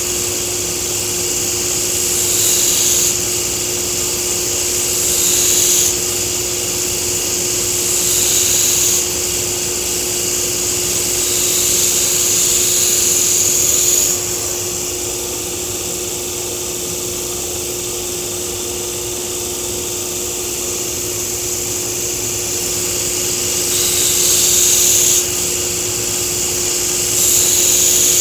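Belt grinder running with a steady hum while the blade of a Takeda nakiri is pressed lightly to the moving belt in about six passes. Each pass is a hissing grind of one to five seconds, the longest near the middle, followed by a stretch of about ten seconds where the grinder runs on its own. The grinding is thinning the blade behind the edge.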